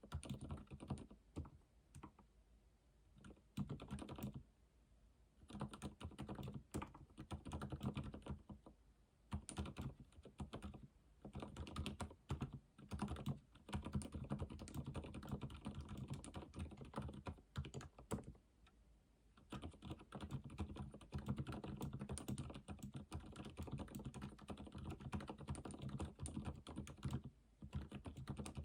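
Typing on a computer keyboard: quick runs of key clicks broken by short pauses of about a second, near the start, in the middle and near the end.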